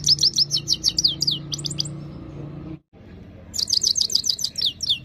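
Himalayan (grey-crowned) goldfinch singing: two fast, twittering runs of high notes, each note sliding downward. The first run lasts about two seconds and the second begins a little past halfway.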